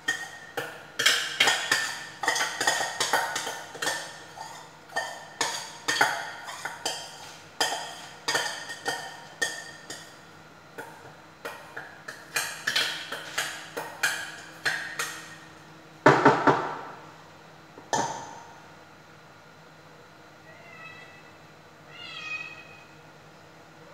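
A metal spoon knocking and scraping against a stainless steel bowl, over and over for about fifteen seconds, the bowl ringing after each knock, with one loud clash about two-thirds of the way through. Near the end a cat meows a few short times.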